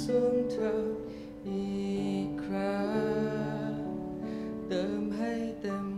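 Slow worship music: sustained keyboard and guitar chords with long sung notes that change every second or two.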